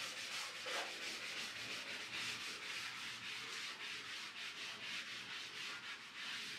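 Faint, rapid scratching strokes, about four a second, of writing on paper.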